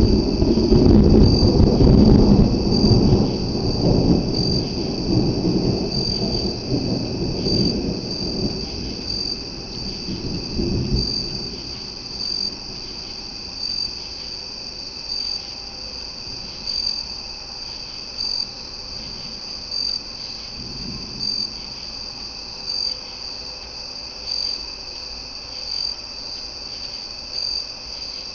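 Thunder rumbling loudly and slowly dying away over the first ten seconds or so, with a fainter rumble about twenty seconds in. Crickets chirp steadily and evenly throughout.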